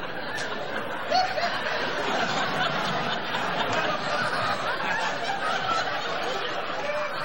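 Studio audience laughing, a sustained wave of laughter from many people.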